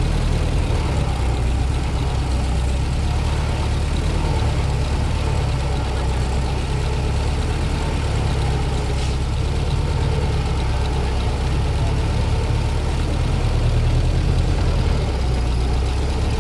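1917 Ford Model T's four-cylinder side-valve engine running steadily with a low drone, heard from the seat of the moving car.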